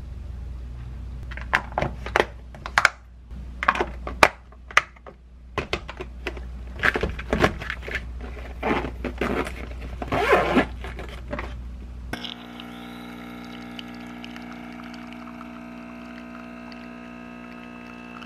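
Plastic food-container lids clicking and snapping shut, with knocks on the counter and a lunch-bag zipper near ten seconds in. From about twelve seconds, an Illy capsule coffee machine runs with a steady hum as espresso pours over ice in a glass.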